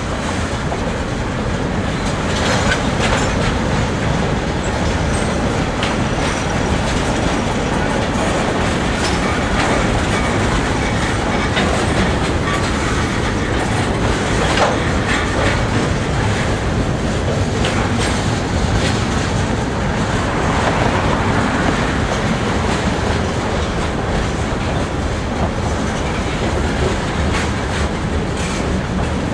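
CSX freight train cars rolling past, a steady rumble of wheels on rail with irregular clicks as the wheels pass over rail joints.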